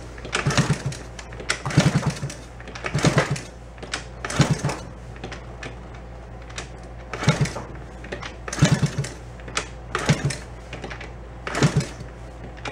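Old Honda 50 monkey bike's small four-stroke single being kick-started about eight times, each kick a short run of low chuffs and lever clatter as the engine turns over without catching, with a pause in the middle. The owner suspects the spark plug is fouled and too wet.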